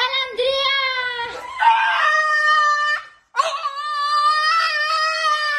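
French bulldog howling: two long, drawn-out high howls, the second starting after a short break about three seconds in.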